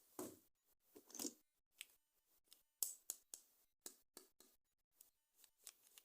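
Plastic toy packaging being handled: two soft crinkling rustles in the first second and a half, then a string of short, sharp clicks and taps.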